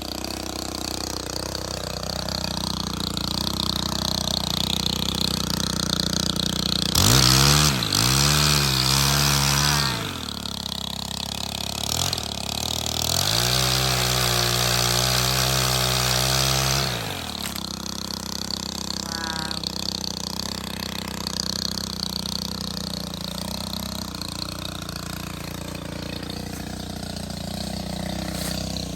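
Stihl HT 131 pole saw's small engine idling, revved up to high speed twice for a few seconds each and dropping back to idle in between, with a short blip between the two runs.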